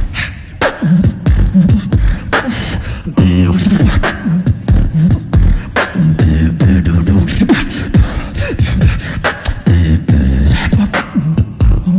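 Solo beatboxing into a handheld microphone: sharp snare and click sounds in a fast rhythm over a deep pitched bass line, with a gliding pitch about seven and a half seconds in.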